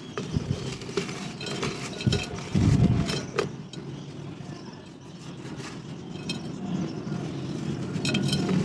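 Dried mud shapes and clay pot pieces being crushed and crumbled up close, crunching with scattered sharp cracks. The loudest moment is a heavy, dull crunch about two and a half seconds in.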